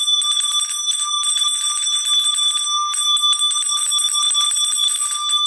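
Metal handbell shaken continuously, its clapper striking rapidly and the bell ringing a steady, high tone.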